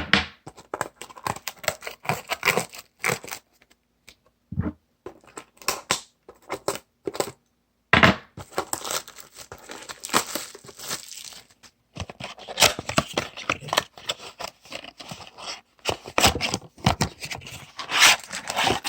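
A trading-card blaster box being torn open by hand: cardboard ripping, with the crinkle and rustle of the wrapped packs inside. The sounds come in irregular bursts and sharp clicks.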